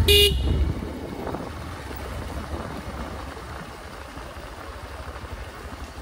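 A short horn toot, then a Bajaj 110 cc single-cylinder motorcycle engine running steadily with an even low pulsing.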